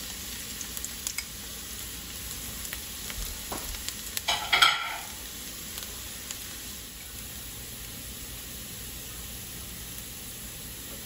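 Minced garlic sizzling steadily in hot oil in a nonstick pan, with scattered small crackles and a brief, louder clatter of utensils about four and a half seconds in.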